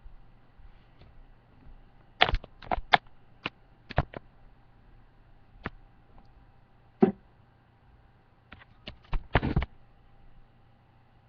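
Scattered sharp clicks and knocks, one cluster about two seconds in and another near the end, over a faint steady hum.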